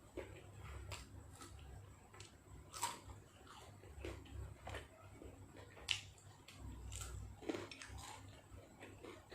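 A person eating nam tok beef salad with raw vegetables: soft chewing and mouth sounds, with a few sharp clicks, the loudest about three and six seconds in.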